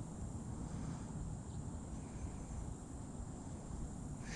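Quiet outdoor ambience: a steady low rumble with a faint, steady high-pitched insect drone, likely crickets, above it.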